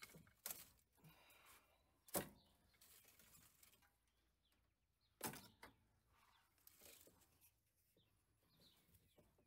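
A few sharp clicks and snaps, the loudest about two seconds in and again about five seconds in, with faint rustling between, as old perished rubber vacuum hoses and their plastic fittings are cut and pulled off the engine.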